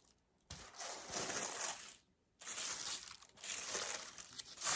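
Packaging crinkling as it is handled during an unboxing, in two stretches with a brief pause about two seconds in.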